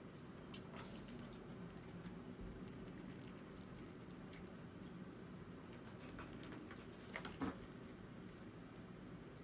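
Faint scattered clicks and light jingling of cat toys being batted about by playing kittens, over a steady low room hum. The loudest little clatter comes about three-quarters of the way through.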